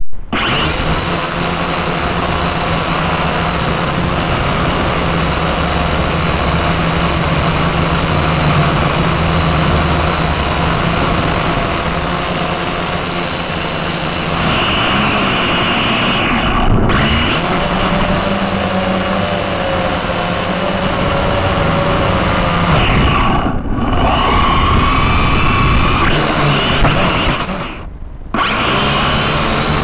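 Syma X5SC-1 quadcopter's small electric motors and propellers whining steadily, close to the onboard camera's microphone. The pitch shifts as the throttle changes, and the sound briefly thins out three times, most clearly near the end.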